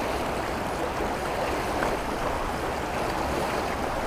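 Shallow, fast river running over weed beds and stones: a steady rush of flowing water.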